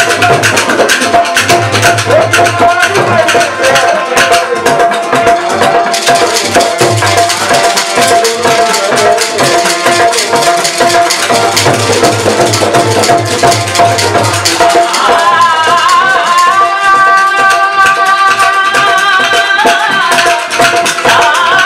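Rajasthani folk music: rapid, dense clacking of khartal wooden clappers over dholak drum strokes and a steady harmonium drone. About three-quarters of the way through, a singing voice comes in over the rhythm.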